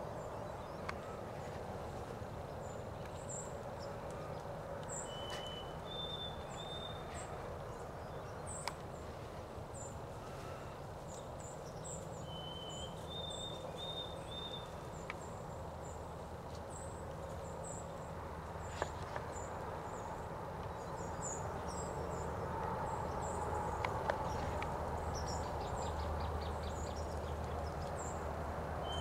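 Woodpecker tapping on wood: scattered single sharp knocks, with a brief fast run of taps near the end. Small birds chirp throughout, with a short two-note call repeating a few times, over steady outdoor background noise.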